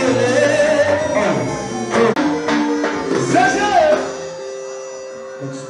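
Music with a voice singing over it; about four seconds in the singing stops and a few held notes fade away.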